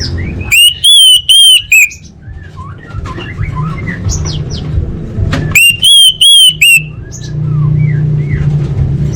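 Orange-headed thrush (anis merah) song: two loud phrases of about four arched whistled notes each, about five seconds apart, among softer chirps and twitters over a low steady hum.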